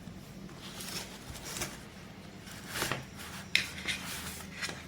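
Paper instruction leaflets and packaging being handled and rustled, with a few short light clicks and taps from about three seconds in.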